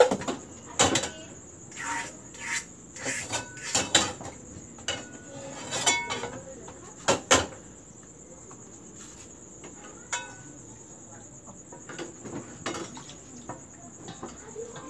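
Metal frying pans knocking and clanking against the gas stove and each other as batter is swirled in them, many irregular knocks over the first half and fewer after. A steady high chirring of crickets runs underneath throughout.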